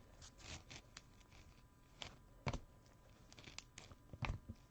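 Faint handling noise of trading cards being shuffled and set down: soft scrapes and small clicks, with a few sharper clicks about halfway through and near the end.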